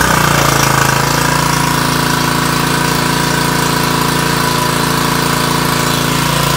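Honda-clone single-cylinder engine of an All Power 2000 psi pressure washer running steadily, having just fired up on a pull start. It now starts on its own after a carburettor clean and new fuel line.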